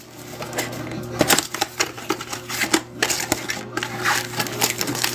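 Plastic wrap and cardboard packaging of a trading-card box being torn open and handled, a run of irregular crinkling and crackling clicks.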